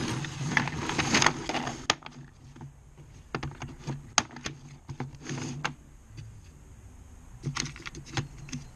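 Yellow plastic screwdriver-bit case set down on a wooden workbench and clicked open, then steel driver bits clinking in it as a hand picks through them. A scraping clatter at first, then scattered sharp clicks, with a quick run of clicks near the end.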